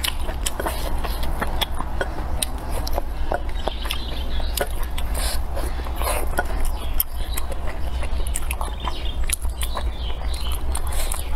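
Close-up eating sounds of a person chewing food, with many irregular short mouth clicks and smacks, over a steady low hum.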